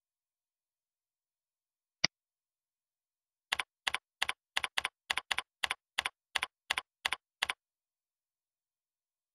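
A single click about two seconds in, then a computer keyboard typing about a dozen quick keystrokes over some four seconds as a task name is entered.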